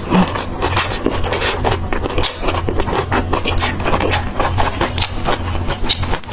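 Close-miked chewing and crunching of fried skewer snacks: dense, irregular crackles and smacks.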